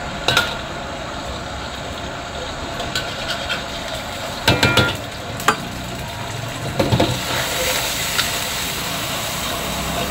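Fried rice frying in a street-vendor's wok, with a metal spatula clanking and scraping against the wok several times. A cluster of clanks comes a little before halfway, and the sizzle grows louder and hissier in the second half.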